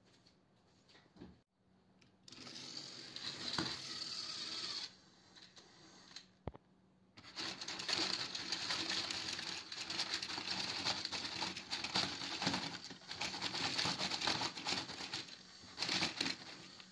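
Small battery-powered toy train motors and plastic gearboxes running with a rattly whir as the two engines push against each other nose to nose. It comes in two stretches: from about two seconds in to about five, then from about seven seconds in to near the end, with a click before each.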